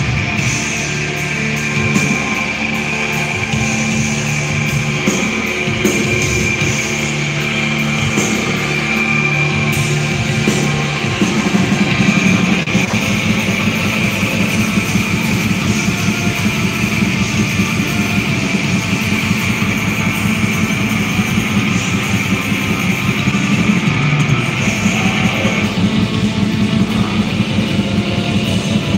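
A black metal band playing live: distorted electric guitars and a drum kit at full volume. About eleven seconds in, the music grows denser and slightly louder, with a fast, packed drum pattern.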